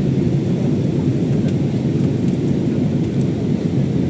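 Airliner cabin noise during the descent to land: a steady, loud, low rumble of engines and rushing air.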